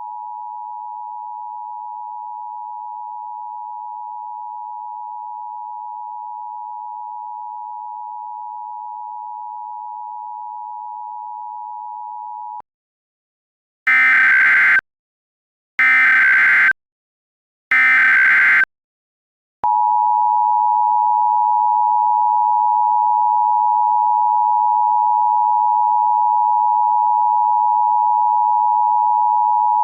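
Emergency Alert System tones: a steady two-tone attention signal (853 and 960 Hz), then about a second of silence, three one-second bursts of screeching SAME header data about a second apart, and the two-tone attention signal again, louder. The sequence marks the start of an EAS activation for a civil danger warning.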